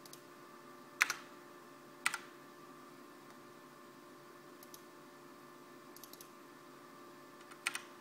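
Computer keyboard keystrokes and mouse-button clicks: sharp double clicks about one and two seconds in, a few faint clicks later, and a louder click near the end, over a faint steady hum.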